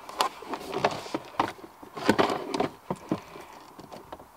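Vauxhall Astra H's plastic glove box trim knocking and scraping as it is handled into place, with loose wires rustling: an irregular run of small clicks and knocks.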